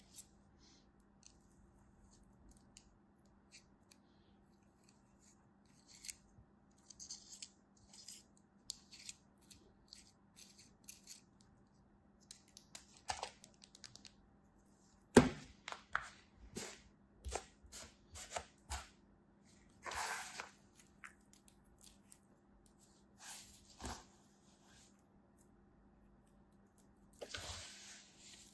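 Kinetic sand being packed into and crumbled out of a plastic mold by hand: soft crunching and crackling in short scattered bursts. A sharp tap about halfway through is the loudest sound, and a longer crumbly rustle comes near the end.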